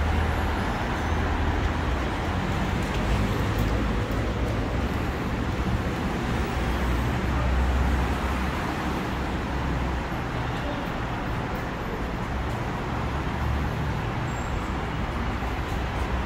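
Steady road traffic noise from many cars on a busy multi-lane road: a continuous low rumble and tyre hiss with no single vehicle standing out.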